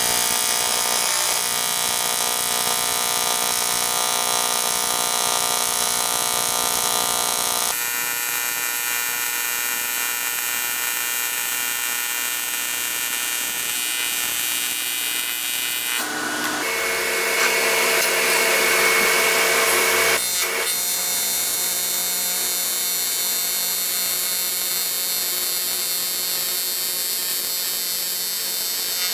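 AC TIG welding arc on aluminum from an HTP Invertig 400 inverter welder, a steady high buzz that holds for seconds at a time, its tone changing abruptly about 8, 16 and 20 seconds in.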